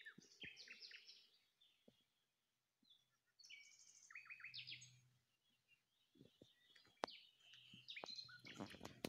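Songbirds singing faintly: short bursts of quick, repeated high chirping notes, with a few sharp clicks between them. A louder, noisier sound comes in near the end.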